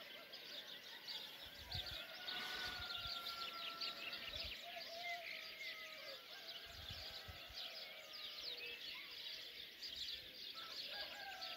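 Dawn chorus of many small songbirds chirping and twittering continuously, with a distant rooster crowing: one long crow in the first half and another starting near the end.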